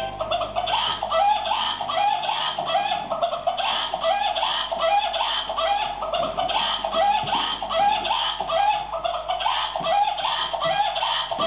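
Battery-powered animated toy chicken playing its song: electronic clucking repeated evenly about twice a second, over a steady music backing.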